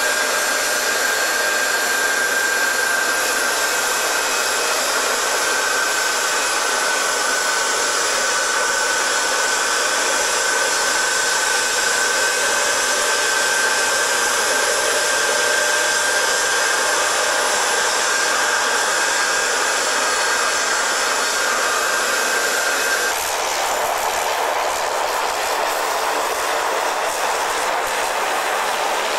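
Steady jet aircraft engine noise on an airport ramp: a high whine over a loud rush. About 23 seconds in the whine stops and a rushing noise without it carries on.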